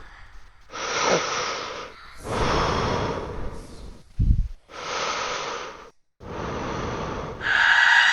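Heavy, drawn-out breathing: four long, rasping breaths with short gaps, and a short low thud about four seconds in. Near the end a loud, sustained high-pitched tone sets in.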